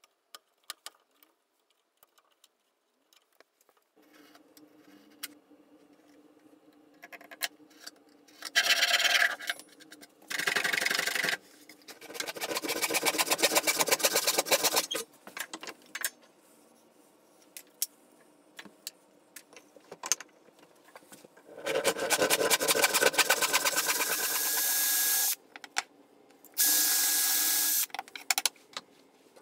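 Hand tools working spruce: several long rasping strokes of a hand saw and hand plane on wood, each lasting one to three seconds, after a few light clicks of bar clamps being adjusted.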